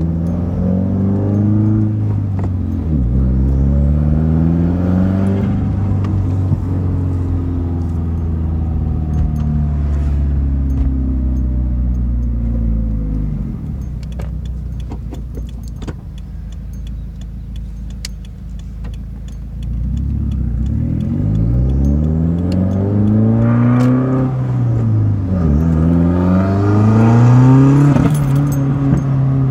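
2017 Subaru WRX's turbocharged 2.0-litre flat-four with a Grimmspeed catted J-pipe and Carven cat-back exhaust, heard from inside the cabin with the window down, pulling hard through the gears: the engine note climbs and drops at each shift. Around the middle it eases off for several seconds, then pulls hard again through two quick shifts, with a faint rising turbo whistle over the pulls.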